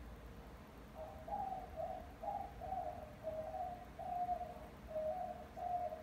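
White-winged dove cooing: a run of about ten short coos in quick succession, starting about a second in.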